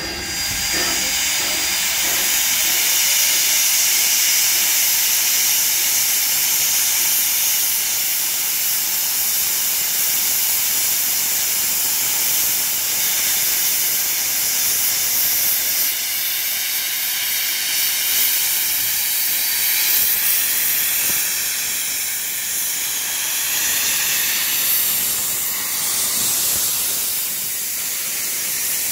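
NSW 32 class steam locomotive 3265 venting steam in a loud, steady hiss that runs on without a break.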